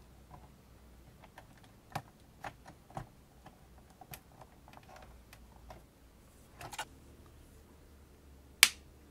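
Scattered small clicks and snaps of a grey ribbon cable's plastic connector being handled and pushed onto a floppy drive's connector, with one much louder sharp click near the end.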